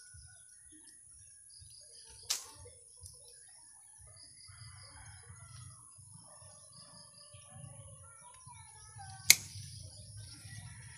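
Bypass pruning shears snipping ficus branches: two sharp clicks, one about two seconds in and a much louder one near the end. Birds chirp faintly in the background.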